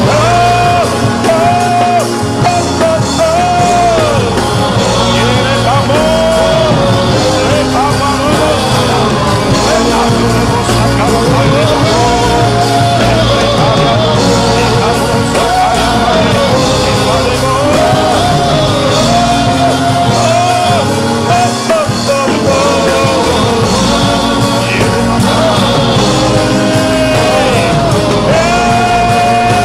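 Christian worship music: a slow sung melody with no clear words, holding and gliding between notes over a steady band backing.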